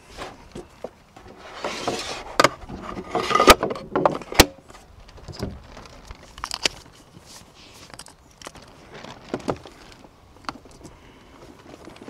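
Hand assembly of a metal and plastic mount: parts rattling, scraping and clicking together, with two sharp clicks near the middle and lighter clicks after.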